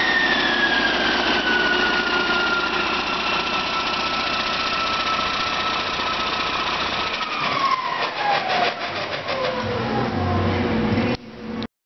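2012 Detroit Diesel DD13 inline-six diesel engine running with a high whine that falls slowly in pitch. About seven seconds in the engine is shut off: its rumble drops away and the whine winds down steeply amid a few rattles, before the sound cuts off near the end.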